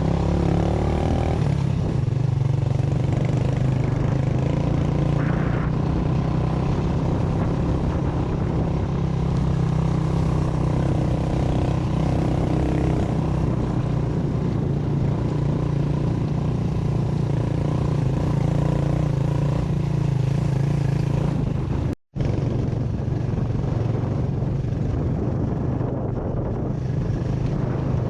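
Motorcycle engine running steadily under way, a continuous even drone, with a momentary break about 22 seconds in.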